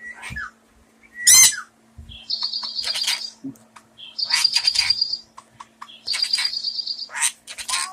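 Pet bird calling: a loud whistle that sweeps up and down about a second in, then three harsh, buzzy calls of about a second each, with short clicks between them.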